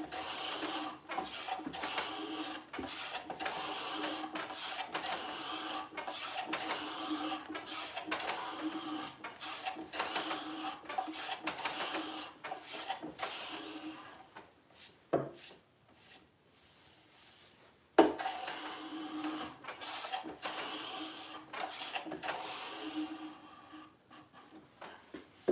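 Hand plane taking shavings off the edge of a wooden drawer, a quick run of scraping strokes one after another. The planing stops with a knock about halfway through, starts again about 18 seconds in, and stops shortly before the end.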